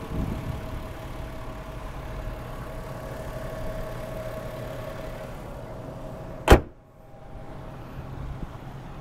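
Toyota Aristo's 2JZ-GTE twin-turbo straight-six idling with the bonnet open, then the bonnet slammed shut with a single loud bang about six and a half seconds in. After the bang the idle carries on more muffled.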